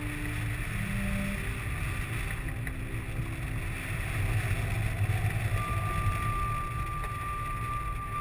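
Wind rushing and buffeting over the camera microphone of a hang glider in flight, a steady low rumble. A few slow, held music notes sound faintly over it, one of them held from about the middle to the end.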